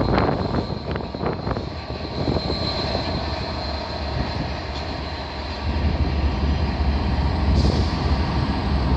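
Class 67 diesel locomotive hauling passenger coaches out, its two-stroke V12 engine a deep steady drone over wheel and rail noise, with the rumble strengthening about halfway through. A thin steady high whine runs through most of it.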